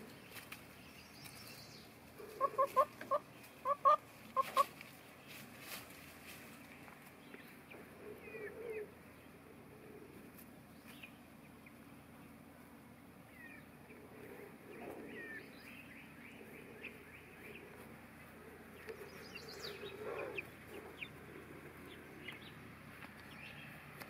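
Chickens clucking: a quick run of short clucks a few seconds in, then quieter.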